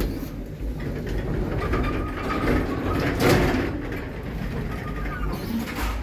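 A 1997 KONE passenger lift running, heard from inside the car: a mechanical noise that starts abruptly, swells about three seconds in, and stops near the end.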